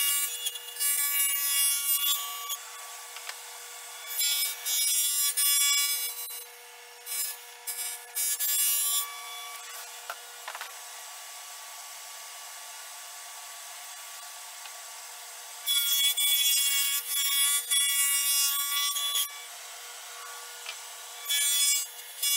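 Table saw fitted with a dado stack running steadily, cutting dado grooves in plywood panels. There are several loud cutting passes, the longest about three seconds, and the motor runs on more quietly between them.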